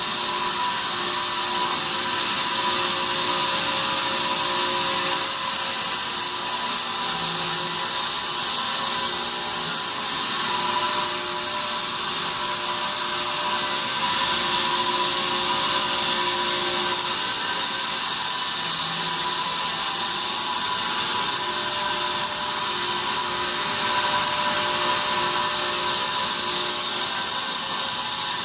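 Sawmill band saw running through pine: a steady, unbroken machine noise with a strong hiss and a tone that comes and goes.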